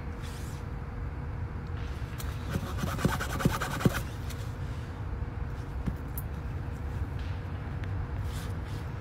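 Tubeless tire plug repair: a rasping, scraping run of clicks from the sticky string plug and the tire-plug insertion tool being worked, ending in a few sharp ticks, about two to four seconds in. A steady low rumble sits underneath.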